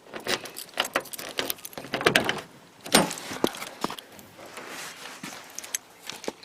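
Keys jangling and a run of irregular clicks and knocks as a locked car door is unlocked with its key and opened, the loudest knocks about two and three seconds in.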